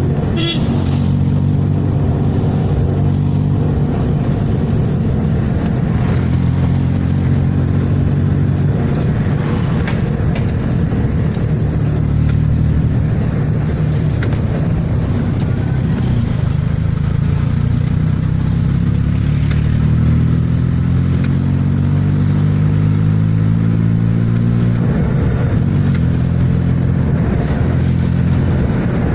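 Suzuki Alto's engine, converted from fuel injection to a carburettor and distributor ignition, running under load on the road, heard from inside the cabin. Steady through most of it; it climbs in pitch as the car accelerates about two-thirds of the way in, then drops at a gear change near the end.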